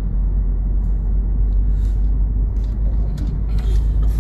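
Steady low rumble of a moving car heard from inside the cabin, with a few brief rustles and scuffs, most of them near the end.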